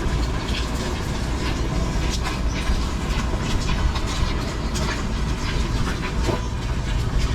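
Steady rain falling, with many small drops tapping close by over a continuous low rumble.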